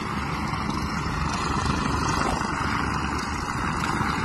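Steady engine noise and rushing wind from a fast-moving vehicle, mixed with the rotor of a helicopter flying low overhead.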